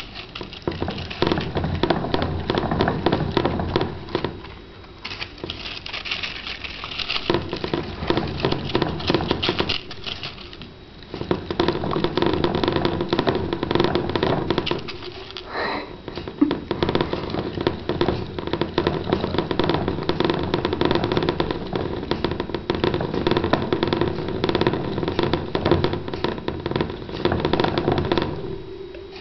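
Plastic hamster exercise wheel spun by two Roborovski dwarf hamsters running together: a fast, dense clattering rattle with a steady hum, easing off briefly a few times as the running slackens.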